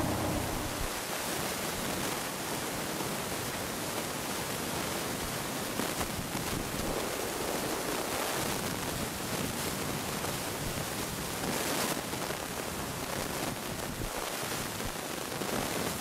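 Steady, even hiss of outdoor ambience, with no distinct sounds standing out.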